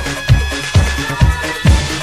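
Instrumental Hi-NRG disco dance music: a steady four-on-the-floor kick drum about twice a second under sustained synth lines.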